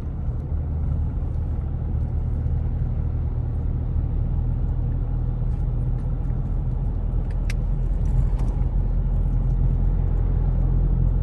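Steady low rumble of a moving road vehicle, with a short faint high tone about two-thirds of the way through.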